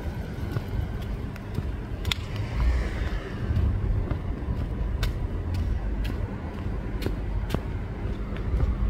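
Low, uneven rumble of road traffic on a street, with a few sharp clicks spread through it.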